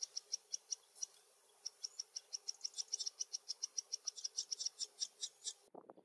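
A small brown grassland songbird calling: a rapid, even series of high ticking notes, about seven a second, with a short pause about a second in. It cuts off suddenly just before the end.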